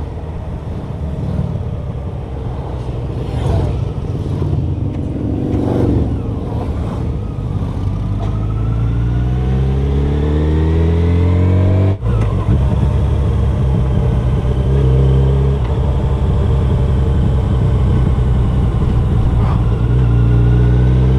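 2018 Yamaha FJR1300's inline-four engine running under way, with wind noise. It accelerates with its pitch climbing, breaks off sharply about twelve seconds in, then runs on steadily and climbs again near the end.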